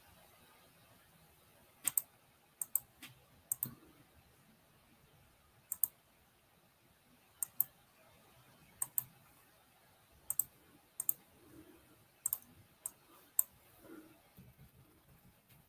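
Computer mouse clicking: sharp, irregularly spaced clicks, many in quick pairs, about twenty in all.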